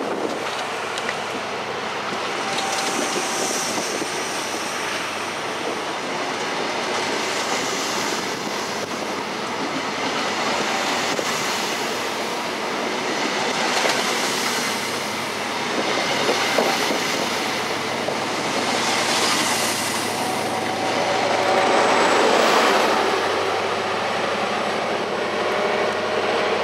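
East Coast InterCity 125 (HST) rolling past and away: Mark 3 coach wheels clattering on the rails, with a swell every few seconds as each set of wheels goes by. The loudest swell comes about 22 seconds in, as the rear Class 43 power car passes, and faint wheel squeal follows as the train moves off.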